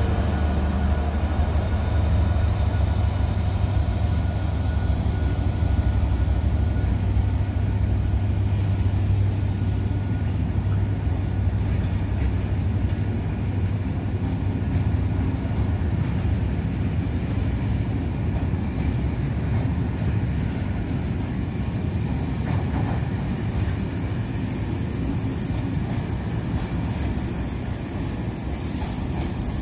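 Departing freight train: the diesel locomotive's engine hum fades as it pulls away, leaving the steady rumble of loaded sleeper wagons and Network Rail ballast hoppers rolling past. A thin, high wheel squeal comes in over the rolling during the last third.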